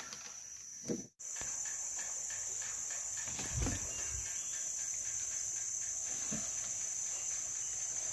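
Steady high-pitched buzzing of forest insects, broken briefly about a second in, with a couple of soft low knocks around three and a half and six seconds in.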